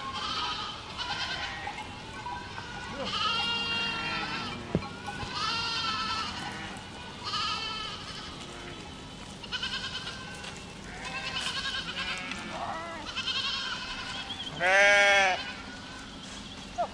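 A group of goats bleating: a dozen or so short calls at different pitches, one after another and now and then overlapping. About fifteen seconds in comes one louder, lower bleat.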